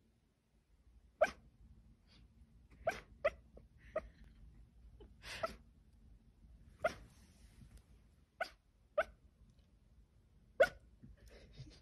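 Sleeping dachshund barking in a dream: about nine short, clipped barks and yips come a second or two apart, with one slightly longer call about five seconds in.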